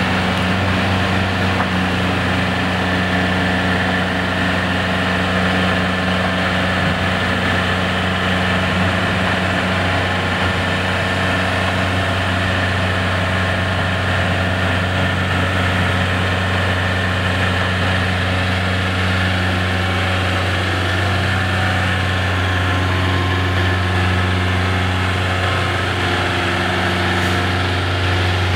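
Heavy diesel engine of a side-loader container truck running at a steady speed, powering the hydraulic lift arms as they raise a 20 ft shipping container. The note is even, with no revving.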